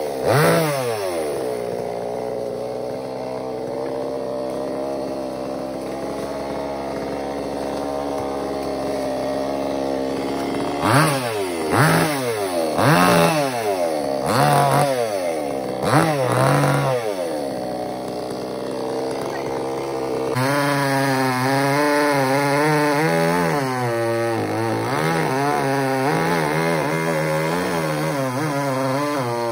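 Chainsaw engine idling, then blipped in quick revs up and down several times, five of them in a row in the middle. From about two-thirds of the way through it runs at a higher, wavering speed.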